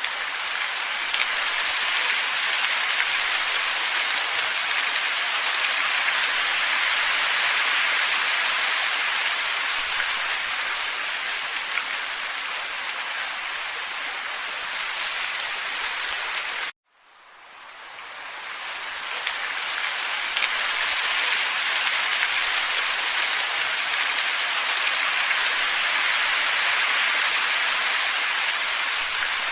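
Steady, even hiss of a looped ambient nature-sound track. It cuts off abruptly about 17 seconds in, then fades back up over the next few seconds to the same hiss.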